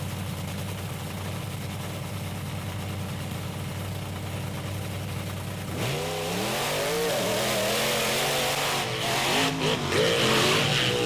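Two monster truck engines running steadily at the start line, then about six seconds in they launch and race side by side. The engines rev hard and get louder, their pitch rising and falling as they accelerate.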